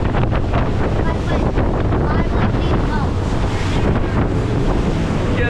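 Heavy wind buffeting a camera microphone on a moving powerboat, over the rush of water. It is loud and steady throughout.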